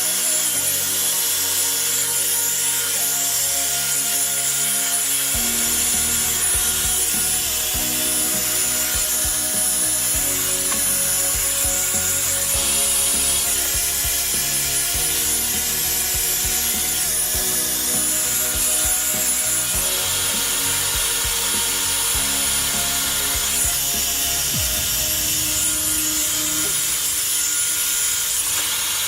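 Revlon One Step hair dryer brush running: a steady, even blowing hiss from its fan as the brush is worked through hair.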